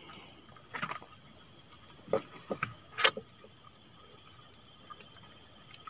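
A few scattered clicks and knocks as a freshly caught fish is handled and unhooked in a small boat, the sharpest about three seconds in, over a faint steady high-pitched tone.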